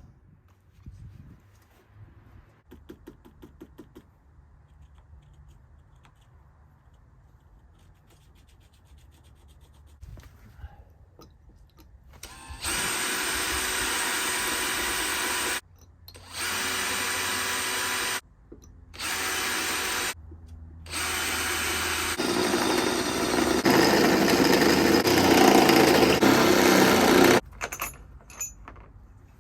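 Power drill boring out the spot welds that hold the old steel door hinge, in four runs with short pauses; the last run is the longest and loudest.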